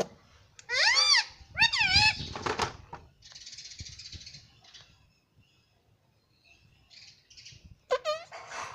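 Indian ringneck parakeet calling: two loud calls with quickly wavering pitch about one and two seconds in, a hissing sound a little later, and another short call near the end.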